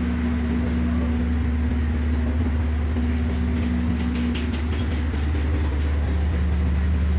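Caterpillar 3412 turbocharged V12 diesel engine running steadily at an even idle, a deep constant hum with no change in speed. A few faint clicks sound over it about four seconds in.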